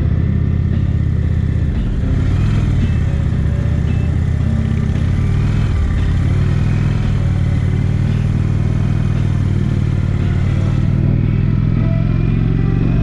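Touring motorcycle engine running at road speed, heard from the rider's seat, its note shifting up and down a few times with the throttle over steady wind and road noise.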